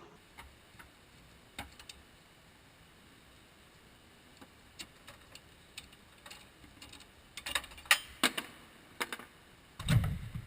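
Scattered light clicks and taps of hand tools on metal, with a cluster of louder clicks past the middle and a dull thump near the end.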